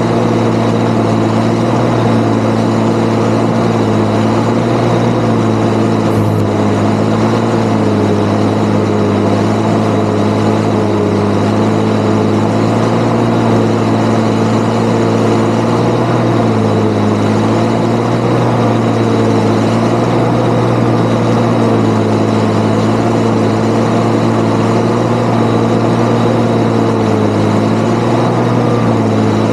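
Valtra 8400 tractor's diesel engine running steadily under load, driving a precision forage chopper, its pitch wavering slightly, heard close to the upright exhaust stack, with a steady high whine over it.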